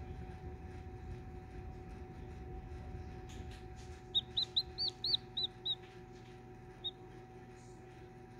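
Hatching chick peeping from inside its opened egg: a quick run of about seven short, high peeps, then one more a second later, over a steady low hum.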